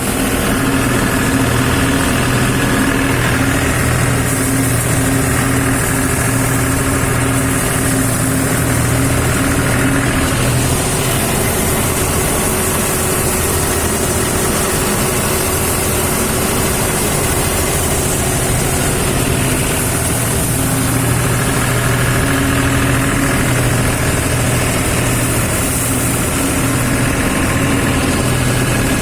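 Combine harvester running steadily: a constant engine drone with a hiss over it, the engine note easing a little through the middle stretch and then coming back.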